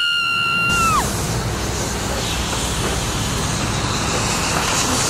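A brief high held tone bends down and cuts off about a second in, giving way to a steady, loud rushing wind-like noise, a tornado storm sound.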